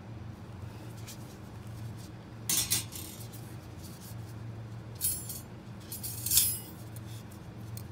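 Stainless steel orthodontic pliers clinking against a steel instrument cassette as they are set down and picked up: three short bursts of metallic clinks, about two and a half, five and six seconds in, the last the loudest, over a low steady hum.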